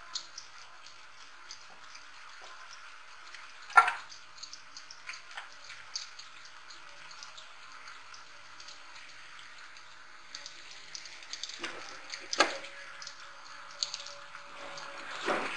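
Sliced onions sizzling and crackling in hot oil as they fry to light brown and are stirred in a metal pot. A spoon knocks sharply against the pot about four seconds in and again after about twelve seconds.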